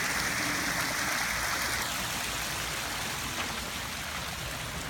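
Water running and splashing down a built pond stream and waterfall, a steady rush that turns a little softer and duller about two seconds in.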